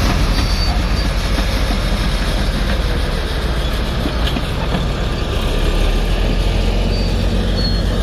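Heavy earthmoving machinery at work, led by a crawler bulldozer: diesel engines running in a loud, continuous rumble, with a deep steady engine hum that grows firmer about halfway through.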